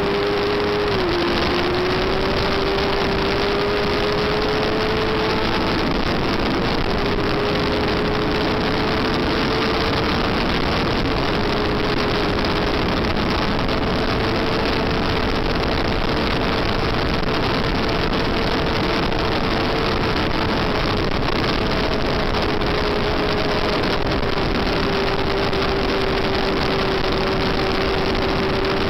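Yamaha FZR400's inline-four engine held at high revs, heard from an onboard camera over heavy wind rush. Its pitch dips briefly about a second in, then stays nearly steady with small steps, easing slightly lower near the end.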